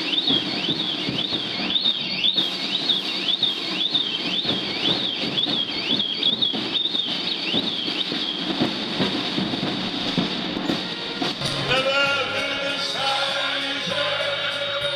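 A high chirp repeats about twice a second over a busy background and stops about eight seconds in. From about twelve seconds in, a crowd sings along to music.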